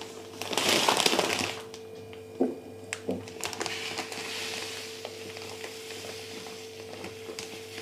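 Granulated sugar poured from a plastic bag onto grapes in a ceramic jar: a rush of sliding grains with crinkling plastic for the first second and a half, then a couple of light clicks and a softer trickle. A faint steady hum sits underneath.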